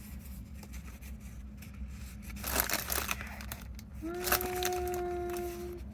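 Paper rustling and crinkling as craft paper and sticker sheets are handled, with a louder burst of rustling a little before halfway. Near the end comes a steady, level tone held for almost two seconds.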